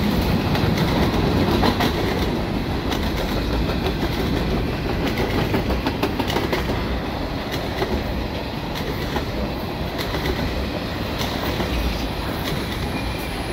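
Freight train of tank cars and covered hoppers rolling past at speed: a steady roar of steel wheels on rail with irregular clicks as the wheels cross rail joints.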